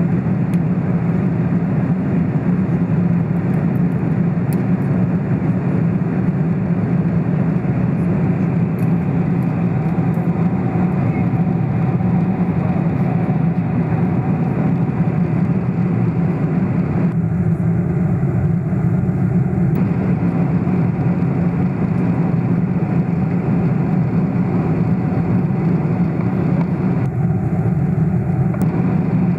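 Steady cabin noise of a Boeing 747-400 in flight: a low drone of engines and airflow heard inside the passenger cabin. The hiss above the drone thins briefly twice, once past the middle and again near the end.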